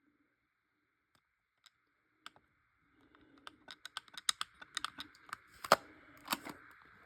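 Irregular light clicks and taps from a plastic alarm unit being handled, starting about three seconds in after near silence.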